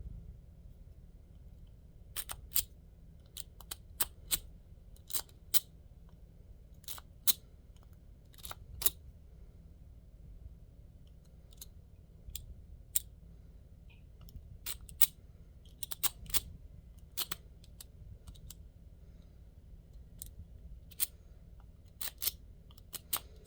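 Steel lock picks working in a lock's keyway: irregular sharp metallic clicks and ticks, singly and in quick clusters of two or three.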